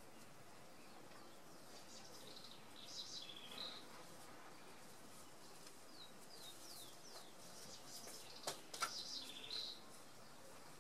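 Faint outdoor ambience of small birds chirping in two short clusters, with a quick run of falling high notes in between and two sharp ticks near the end, over a steady low hiss.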